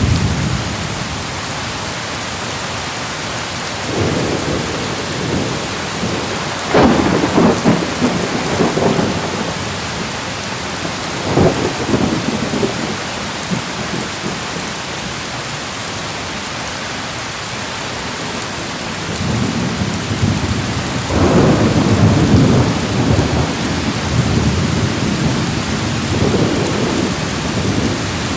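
Thunderstorm: steady rain hissing throughout, with several rolls of thunder. The loudest starts with a sharp crack about a quarter of the way in, and a long rolling rumble fills much of the second half.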